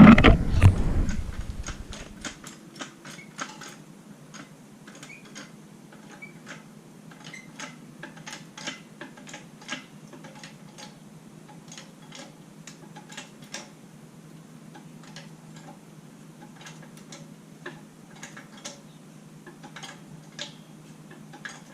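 Scattered, irregular light clicks and taps of metal tools and parts being handled while a jack stand is rigged under the motorcycle, over a steady low hum. There is a louder burst of noise in the first second or so.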